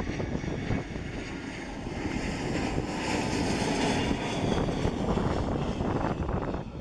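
Boeing 757-200 on final approach with gear down: the steady jet roar of its two Rolls-Royce RB211 turbofans with a faint whine, slowly growing louder as it nears. Wind rumbles on the microphone underneath.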